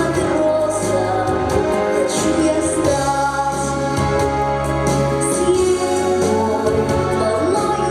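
A song sung by children's voices over steady musical accompaniment.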